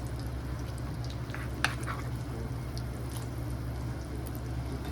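Food sizzling in a frying pan over a steady low hum, with a few sharp clicks of a utensil against the pan about one and a half seconds in.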